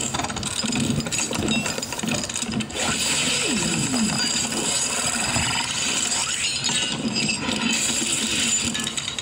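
A cardboard-and-plastic toy box being handled and turned over in the hands, with steady rustling and small clicks.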